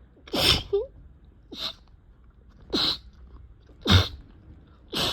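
A person sneezing in a rapid, wet fit: five short sneezes about a second apart, the last one right at the end.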